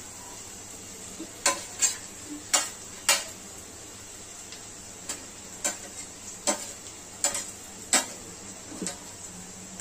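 Metal spoon clinking against a steel plate and an iron kadhai as grated coconut is spooned into browned onions: about ten sharp, separate clicks over a steady faint hiss.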